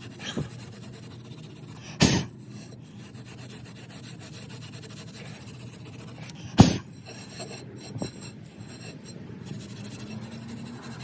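Rust being scraped and rubbed off a car's rear brake hub, a steady rasping, with two sharp knocks about two seconds in and again past the middle.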